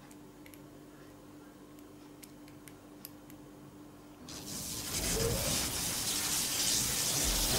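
A few faint ticks of a screwdriver turning a small screw into a plastic model part, then, a little over four seconds in, a loud hissing electric-crackle sound effect starts and keeps going.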